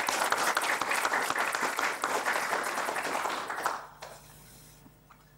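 An audience of a few dozen people applauding, with a dense patter of hand claps that dies away about four seconds in.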